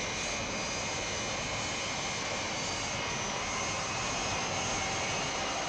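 Jet aircraft engines running steadily in flight: an even rush with faint high whining tones over it, as a television sound effect.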